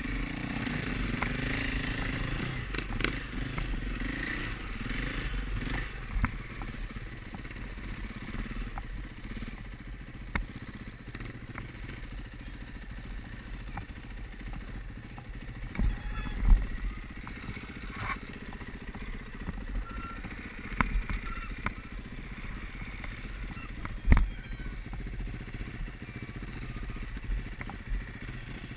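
Enduro motorcycle engine running and revving as it is ridden through snow on studded tyres, heard from a helmet camera. Two sharp knocks stand out, one a little past halfway and one toward the end.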